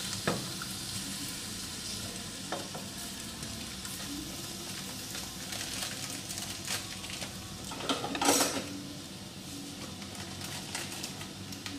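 Chicken pieces sizzling as they sauté in a stainless steel pot, a steady frying hiss. A wooden spatula stirs and knocks against the pot a few times, with one louder scrape about eight seconds in.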